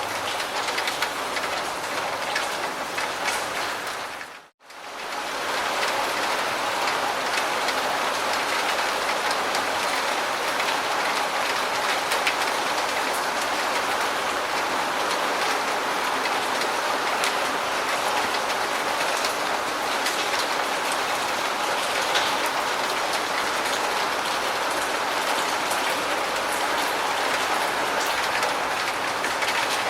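Steady heavy rain falling, a dense even patter. About four and a half seconds in it fades out to near silence for a moment, then comes straight back.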